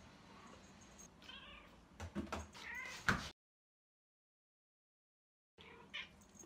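Munchkin cat meowing: a wavering meow about a second in, a few knocks and a louder meow around two to three seconds, and a short meow near the end after the sound cuts out completely for about two seconds.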